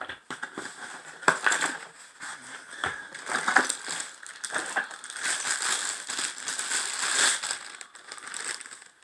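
Packaging being handled and unwrapped: crinkling and rustling in irregular bursts, with sharp clicks and knocks.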